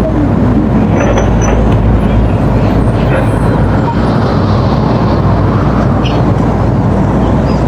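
Excavator's diesel engine running steadily with a heavy low rumble, with a few faint squeaks and clicks over it.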